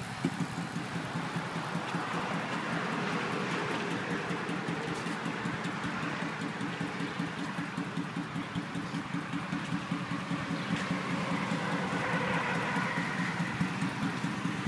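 V-twin cruiser motorcycle engine running at low speed as the bike rolls slowly around and comes closer, its even exhaust pulse growing louder near the end.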